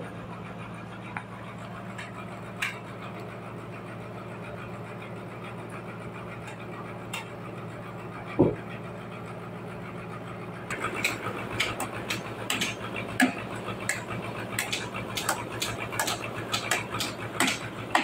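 Steady low hum of sawmill machinery running. A single knock comes about eight seconds in, and from about eleven seconds on there are frequent clicks and knocks as heavy sawn wooden slabs are handled and stacked.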